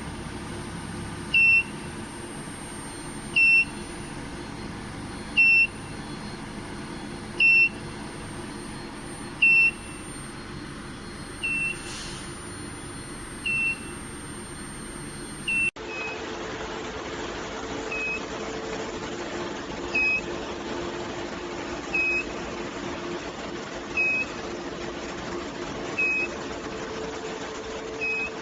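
An electronic beeper sounding a short high beep about every two seconds, over a steady machine hum.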